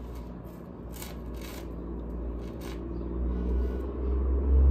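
Tarot cards being handled and drawn from the deck: a few short, soft brushing sounds over a low, steady rumble.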